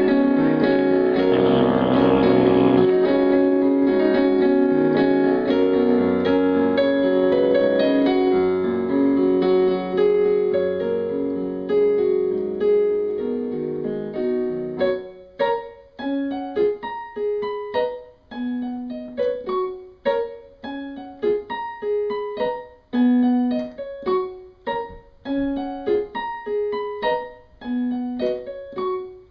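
Piano music: held, overlapping chords for about the first half, then single notes struck one at a time, each fading before the next.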